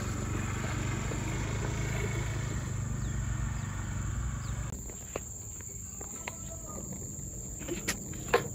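Steady high-pitched insect chirring. Under it, a low rumble runs until a little past halfway, then stops abruptly, and a few sharp clicks follow near the end.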